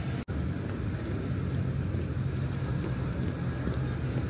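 City street ambience with a steady low hum of traffic. The sound cuts out for an instant about a quarter of a second in.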